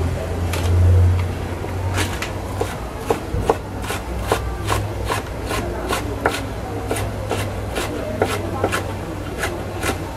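Knife chopping green onion on a wooden cutting board: steady, evenly spaced strokes, about two or three a second, starting about two seconds in, over a low steady hum.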